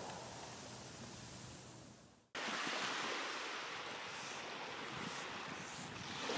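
Steady ocean wash like waves or surf, which fades away to silence about two seconds in; a similar wash starts again abruptly a moment later.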